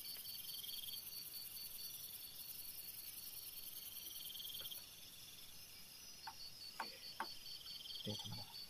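Crickets chirping at night: a steady, rapidly pulsing high chirp with short trills every few seconds. A few faint clicks and a soft knock come near the end.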